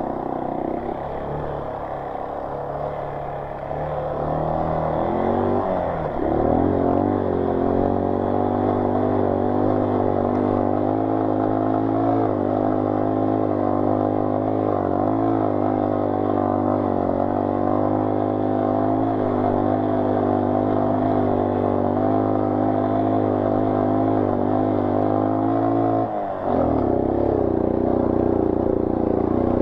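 Motorcycle engine revving up about five seconds in, then held at a steady higher pitch for some twenty seconds before dropping abruptly near the end, the bike labouring in very soft sand.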